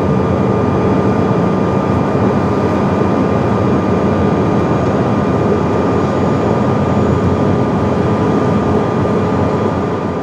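Steady cabin noise inside a Challenger business jet in cruise: an even rush of airflow and engine noise with a constant high whine over it.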